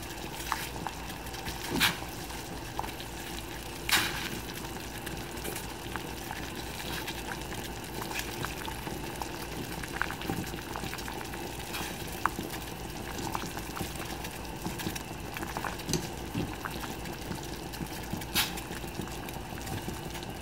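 Saucepan of tom yum broth bubbling on the stove: a steady simmer with many small pops, and a few sharper clicks about two and four seconds in and again near the end.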